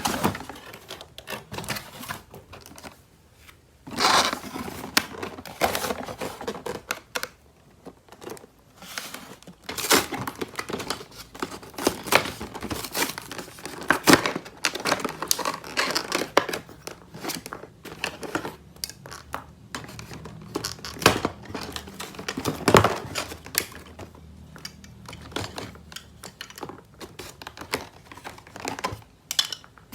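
Toy packaging being unwrapped by hand: plastic and paper crinkling and tearing in irregular rustles, with sharp clicks of plastic pieces.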